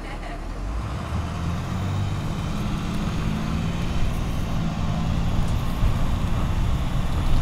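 MaxxForce DT inline-six diesel of a 2009 International IC CE300 school bus running under way, heard from inside the bus. Its low drone grows louder over the first two seconds, then holds steady.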